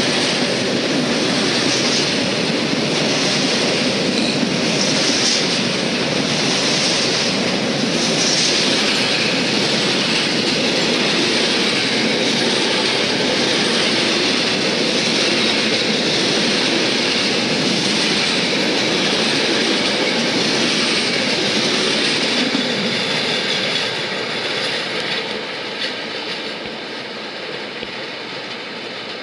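Intermodal freight train of container and swap-body wagons passing: steady noise of wheels on rail. It fades from about three-quarters of the way through as the last wagon goes by and draws away.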